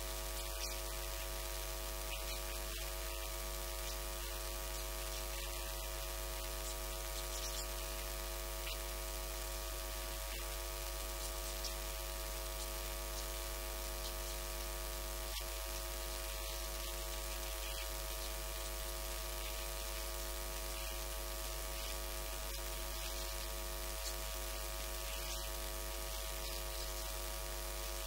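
Steady electrical mains hum with a layer of hiss, unchanging throughout, with no speech heard.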